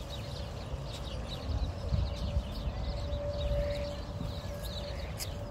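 Many small birds chirping over outdoor ambience, with wind buffeting the microphone as a low rumble that swells about two seconds in. A faint steady hum sits underneath.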